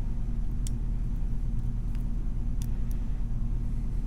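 Steady low background hum, with a few faint light clicks of a lock pick working the pins of a brass padlock.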